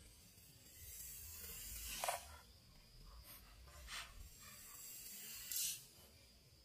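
A large knife shaving a thin bamboo stick. Two long scraping strokes, with sharp clicks as the blade comes off the stick.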